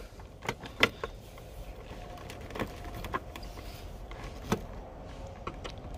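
A handful of light, sharp clicks and taps from fingers handling the loosened plastic section of a pickup truck's under-hood fuse and relay box.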